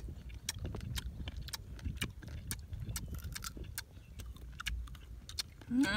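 Someone chewing crunchy mango: irregular crisp clicks and smacks, a few each second. A short voiced sound comes right at the end.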